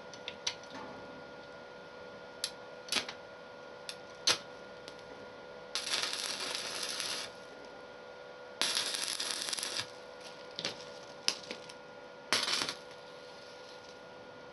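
Electric arc welding: the rod is tapped and scratched against the work with sharp clicks, and the arc catches three times in short spells of crackling hiss, the longest about a second and a half, as the rod sticks and breaks off between them. A steady electrical hum runs underneath.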